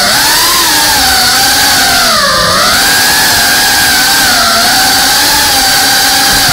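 FPV quadcopter's brushless motors and propellers whining, recorded on the drone's own onboard camera; the pitch rises and falls with the throttle, dipping low about two seconds in before climbing again.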